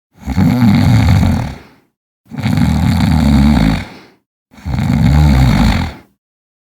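A person snoring: three loud snores, each about a second and a half long, about two seconds apart.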